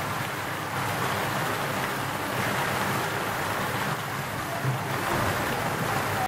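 Steady rushing splash of an artificial water curtain, many thin streams of water falling into a pond.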